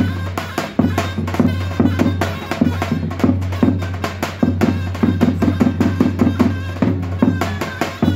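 Davul drum beating a fast, steady rhythm with a zurna melody over it: Turkish folk music.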